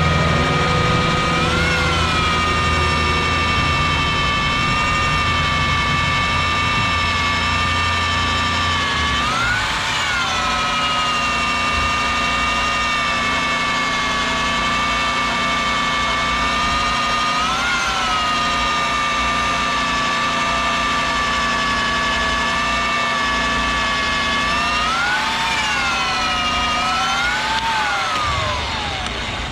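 BLUEROCK 4Z1 W/S electric concrete core drill running with a steady motor whine. Its pitch jumps up briefly a few times, then the motor speeds up and winds down near the end as it is switched off.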